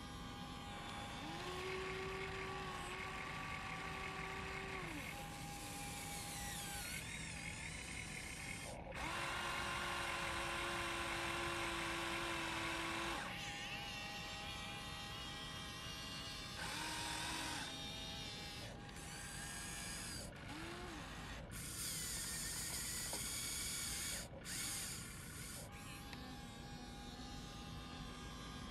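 Huina radio-controlled model excavator's electric motors whining in separate runs of a few seconds as the boom, arm and bucket move, with short rising and falling glides in pitch between runs. The longest and loudest run comes about a third of the way through.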